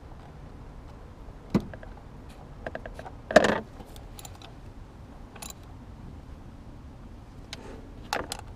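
Light metallic clicks and clinks of a 10 mm wrench and ignition-coil hardware as the coils of a Honda 2.4 L four-cylinder are bolted back down, with a brief louder clatter about three and a half seconds in.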